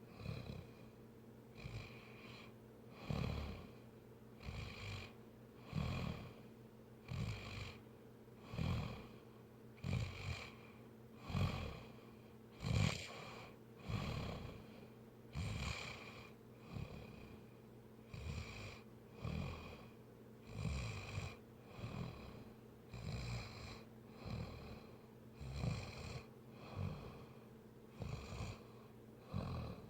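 Snoring in sleep: rough, rhythmic snores about every second and a half, some coming as quick doubled pulls, keeping a steady pace.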